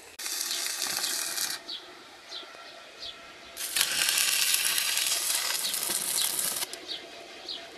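Stick-welding arc crackling and sizzling as a steel rod is run along a steel tank, in two bursts: about a second and a half at the start, then about three seconds from the middle.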